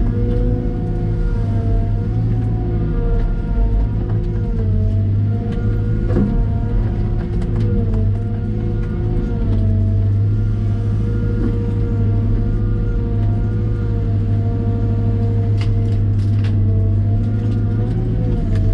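Cat M313D wheeled excavator's diesel engine running steadily, its note dipping slightly now and then as the machine works. A few short knocks sound about six seconds in and again near the end.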